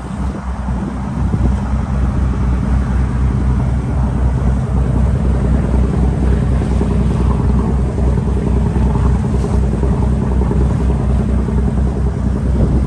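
Boat engine running steadily under way, a low drone, with water rushing past the hull.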